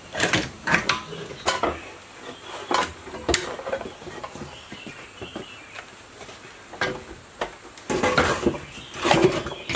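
Irregular metal clinks and knocks of tools and parts on a rusty small portable generator being dismantled by hand. The clatter comes thicker and faster near the end.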